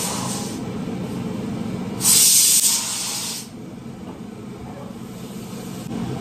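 Pressure cooker hissing steam, with a loud burst of hiss about two seconds in that lasts a second and a half and then cuts off. A steady low hum runs underneath.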